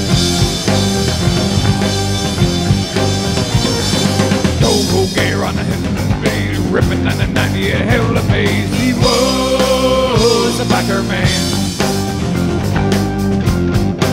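Live rock band playing an instrumental passage on electric guitars, keyboard and drum kit. A lead line with bending notes comes in about five seconds in and holds one long note near the middle.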